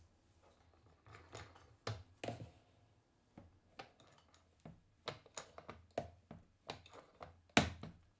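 Hands fitting wooden and metal jig parts together, making irregular clicks and knocks. The loudest knock comes about three-quarters of the way through.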